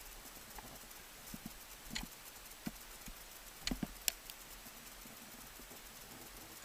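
Ice axe picks striking waterfall ice: a handful of sharp, separate knocks as the axes are swung in, the loudest about four seconds in.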